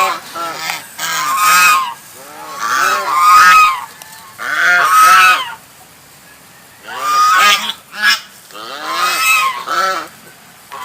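Goose honking: loud repeated honks in bouts of a second or so, with short pauses between them.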